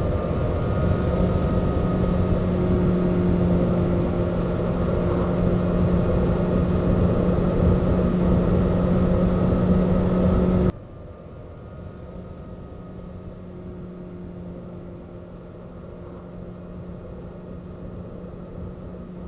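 Motorcycle engine and wind noise at riding speed, a steady rumble with a held hum, picked up by a clip-on wireless mic. About ten seconds in it cuts suddenly to a much quieter, similar recording from another mic placement.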